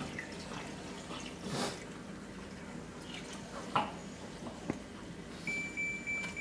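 Water poured from a plastic jug into the tank of a Hava countertop mini dishwasher, a soft trickle with small splashes. Near the end the dishwasher starts a steady high beep, signalling that the tank is full.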